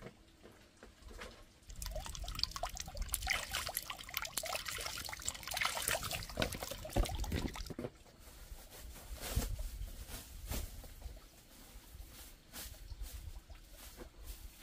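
Crinkling and rustling as a woven plastic sack and bags are handled, loudest and densest for several seconds, then a few scattered knocks and thumps as the sack is shaken out.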